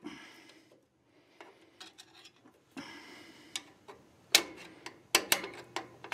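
Rear drum-brake star-wheel adjuster being turned back with a tool, giving irregular metallic clicks that grow louder and come closer together in the second half. The adjuster is being backed off a little after the shoes began to drag on the drum.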